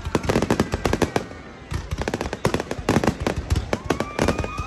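Aerial fireworks going off in rapid, dense bursts of sharp cracks and bangs. A whistling tone comes in about four seconds in and falls slightly in pitch.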